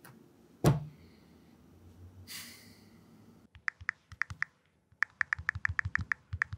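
A single heavy knock about half a second in, a short soft swish, then from about halfway through a run of quick keyboard typing clicks, about six a second at their fastest.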